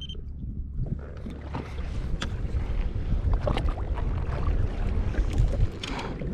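Wind buffeting the microphone over a low rumble, with water splashing and slapping against a jet ski's hull in many short, irregular strokes.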